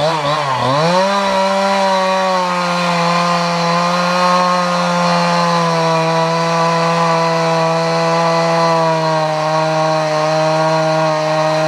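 Two-stroke chainsaw running at high revs and cutting into a dry, dead softwood log. Its pitch dips briefly at the start, then holds steady under load, easing down a little about halfway.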